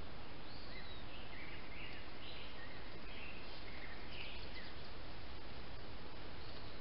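Birds chirping: a scatter of short calls, most in the first five seconds, over a steady hiss of trail camera microphone noise.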